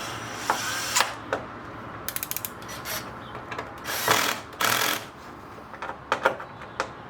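Cordless drill/driver running in short bursts, with a quick run of clicks about two seconds in and a half-second burst about four seconds in; its clutch is set low (4) so as not to break the plastic parts it is fastening.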